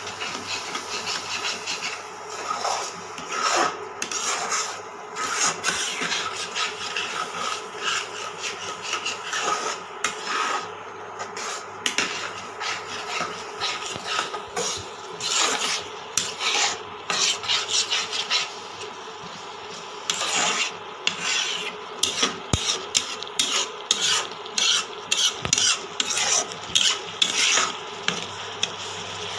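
A spatula scraping and stirring a thick mixture of grated carrot and milk around a pan, in quick, irregular strokes with a brief pause a little past two-thirds of the way through.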